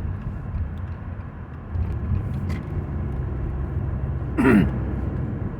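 Car cabin noise while driving: a steady low engine and road rumble that gets a little louder about two seconds in, after a left turn. A short sound with a falling pitch comes near the end.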